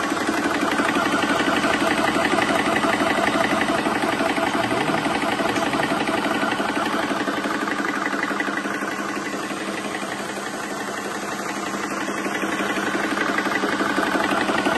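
FXR portable PCP high-pressure air compressor running steadily, its piston pump making a fast, even mechanical chugging. It gets a little quieter for a few seconds past the middle, then comes back up.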